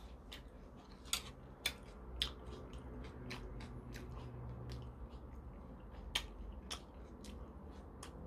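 A man eating pork kimchi stew with metal chopsticks: quiet chewing and mouth smacks, with a scattering of short sharp clicks from the chopsticks and mouth.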